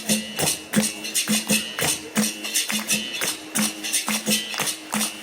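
Capoeira roda percussion playing a steady rhythm: pandeiro jingles and sharp drum strikes, about three a second, over a repeated low tone.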